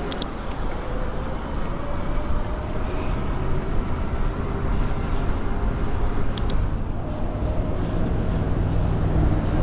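Riding a Bafang BBS02 750 W mid-drive e-bike: steady wind noise on the microphone and tyre rumble, with a faint whine from the mid-drive motor. A couple of brief clicks sound just after the start and again about six seconds in.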